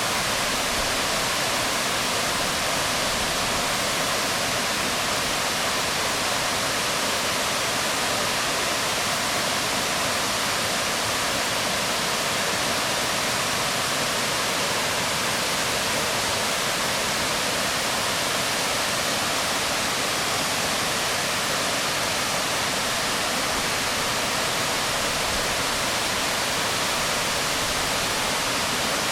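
Waterfall pouring onto rocks: a steady, even rush of falling water with no change in level.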